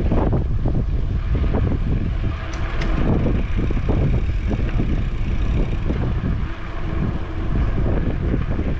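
Wind buffeting the microphone while riding a bicycle: a loud, gusty rumble that rises and falls.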